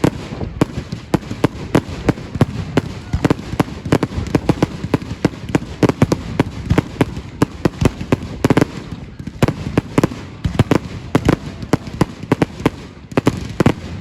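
Fireworks and firecrackers going off in a rapid, irregular string of sharp bangs and cracks, several a second.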